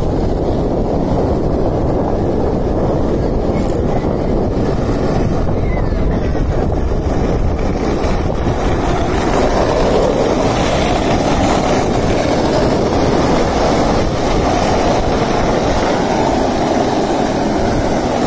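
Steady low rumbling noise of riding down the street: wind buffeting the microphone, mixed with skateboard wheels rolling on asphalt.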